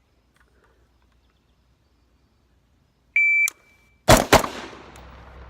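Shot timer gives one short beep, and under a second later an AR-15 rifle fires two quick shots about a quarter second apart (a 0.23 s split), the echo trailing off after them.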